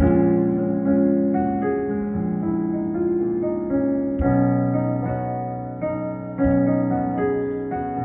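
Synthesizer keyboard playing a piano-like electric piano sound in slow sustained chords, a new chord about every second, with deep bass notes joining about halfway through and again near the end.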